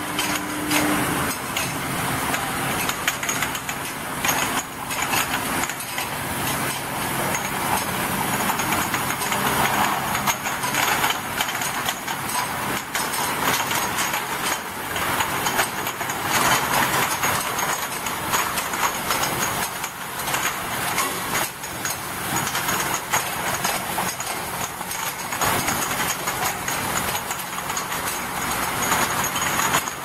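Glass bottles clinking and rattling against each other as an ultrasonic bottle washing machine's rotary infeed turntable crowds them along, a dense, irregular clatter over the machine's steady low hum.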